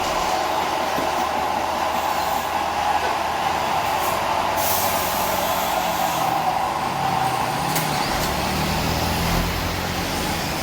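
Heavy truck diesel engine running on a steep climb, with a brief hiss of compressed air about halfway through. A deeper engine note comes in near the end.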